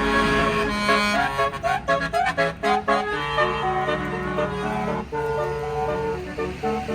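Indonesian bus telolet horn, a multi-note musical air horn, playing a tune. It starts with held notes, runs through a quick string of short sliding notes about one and a half to three seconds in, and ends on longer held notes, over a low bus-engine rumble.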